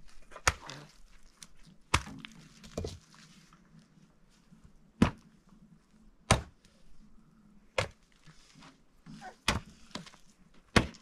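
Repeated hard blows of a tool on something solid: about eight sharp knocks at uneven intervals of one to two seconds.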